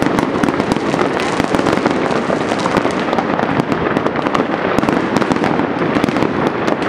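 Many fireworks and firecrackers going off at once: a steady mass of overlapping bangs and crackles with no pause.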